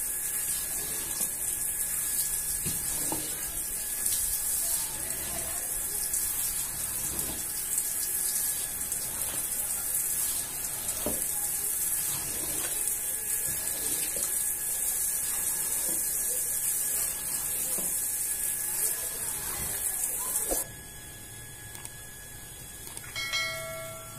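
Water spraying from a hose onto a soaked rug, a steady hiss with occasional soft knocks of a squeegee, cutting off suddenly about three-quarters of the way through. Near the end, a short bell chime.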